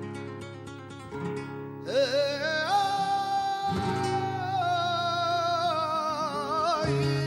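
Flamenco media granaína in free time: acoustic flamenco guitar plays, and about two seconds in a male cantaor enters on one long, wavering, melismatic sung note that runs until near the end, with the guitar under it.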